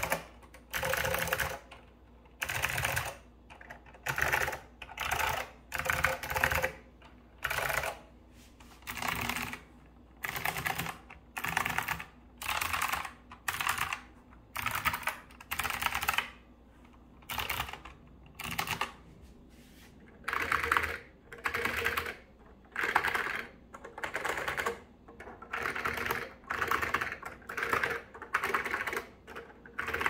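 Mechanical keyboard typing in short bursts of several keystrokes, about one burst a second, with a deep, full sound. First a Leading Edge DC-2214 with clicky Alps SKCM Blue switches, then about 8 seconds in an Azio Retro Classic with Kailh Typelit switches, and later an HP 46020A keyboard.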